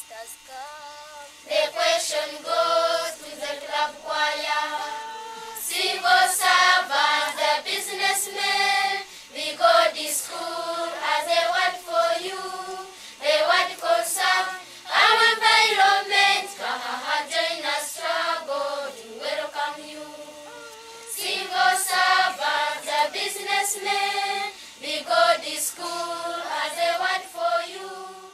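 Choir of primary-school children singing a song.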